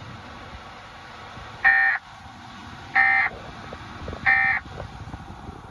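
Emergency Alert System end-of-message data tones: three short, identical bursts of raspy digital squawk about a second apart, heard over AM radio static. They signal that the alert broadcast is over.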